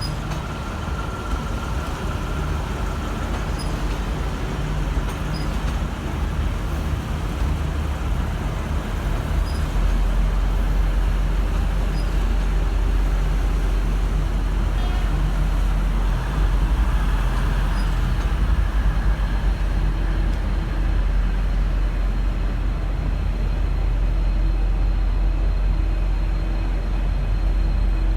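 V/Line N class diesel-electric locomotive's EMD 12-cylinder two-stroke engine running with a deep, steady rumble. About ten seconds in it gets louder and heavier as it is throttled up to pull the train away.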